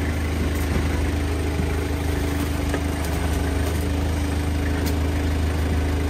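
A motor vehicle's engine running with a steady low drone.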